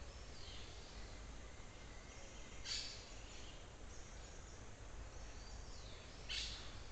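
Forest ambience with a steady hiss, in which birds give short, sharp calls that sweep down in pitch: two louder ones, about three and a half seconds apart, with fainter calls between.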